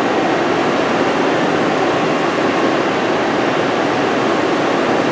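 Steady, even rushing machine noise with no rhythm or pitch, heard while the mill's head is being run along its Z-axis.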